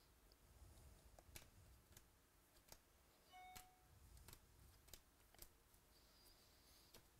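Near silence, with faint, irregular clicks about once a second from baseball trading cards being flipped and handled.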